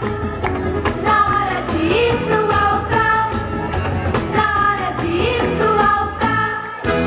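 Brazilian festa junina song played back with singing over a steady, even beat.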